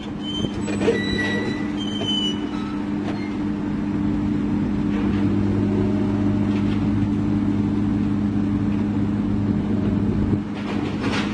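Komatsu PC200-8 hydraulic excavator's diesel engine running steadily under load as the machine swings and lowers its boom. A few brief high squeaks come in the first few seconds.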